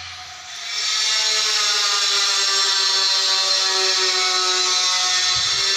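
An electric power tool running steadily with a high whine, starting about a second in.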